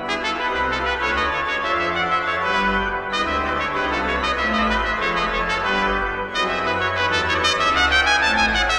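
Trumpet and organ playing together: a trumpet melody over sustained organ chords with deep held bass notes, in an upbeat, joyful movement.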